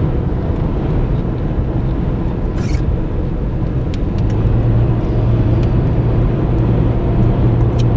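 Car interior road noise while driving at highway speed: a steady rumble of tyres and engine, with a low hum that grows stronger about halfway through.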